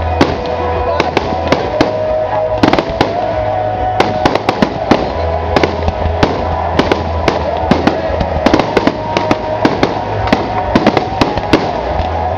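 Fireworks display: a quick, uneven run of sharp bangs and crackles from bursting shells, two or three a second.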